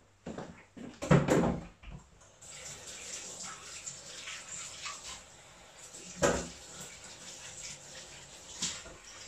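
A couple of knocks in the first two seconds, then a kitchen tap running steadily for the rest, with a sharper knock a little past the middle.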